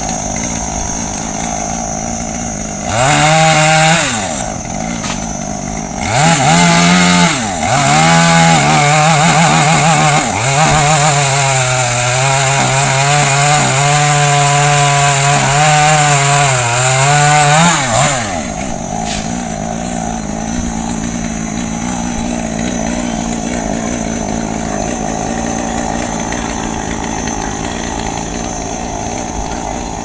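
Two-stroke chainsaw idling, blipped up to high revs several times in short bursts, then held at high revs for about seven seconds while cutting into the tree. It drops back to a steady idle at about 18 seconds.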